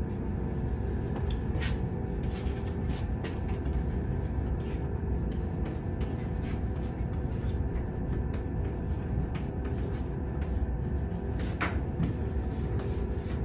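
Chalk tapping and scratching on a blackboard during writing, a scatter of short irregular ticks, two of them sharper about two seconds in and near the end. Underneath runs a steady low rumble.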